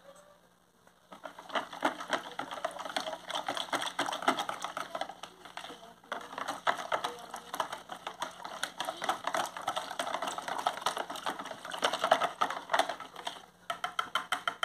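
Wire whisk beating a thin batter in a bowl: fast, continuous clicking of the wires against the bowl's sides, starting about a second in, with a brief pause near the middle and a few slower taps near the end.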